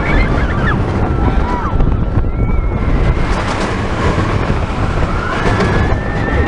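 Roller coaster train of a Vekoma Boomerang running fast along its steel track, with a steady rumble and heavy wind buffeting the microphone. Riders yell and scream now and then, at the start and again near the end.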